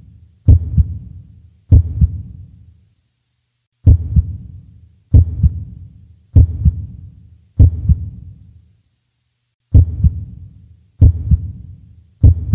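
Heartbeat sound effect: slow, deep double thumps (lub-dub) about every one and a quarter seconds, with a skipped beat twice.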